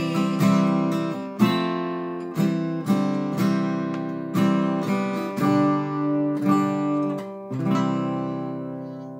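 Acoustic guitar strummed in chords about twice a second, ending on a final chord struck about three-quarters of the way through that is left to ring and fade.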